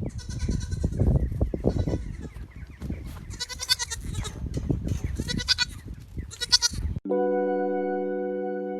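An animal giving a series of high, pitched cries over a low rumbling noise. About seven seconds in, this cuts abruptly to music with a held keyboard chord.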